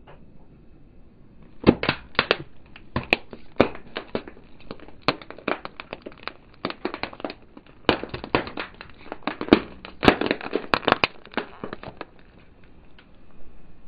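Small lidded plastic tubs cracking and snapping as a car tyre rolls over and crushes them: rapid runs of sharp cracks starting about two seconds in, in two bursts with a brief pause midway, dying away near the end.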